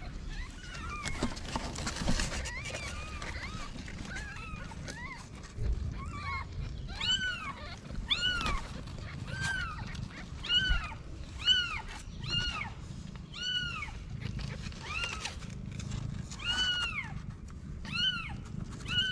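Newborn kittens mewing: a run of short, high-pitched cries, each rising and falling, coming about once a second. A brief rustle about two seconds in.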